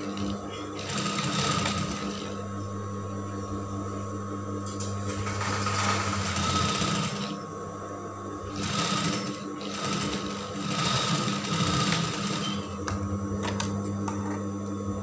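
Industrial lockstitch sewing machine stitching fabric in several short bursts, its motor humming steadily in the pauses between.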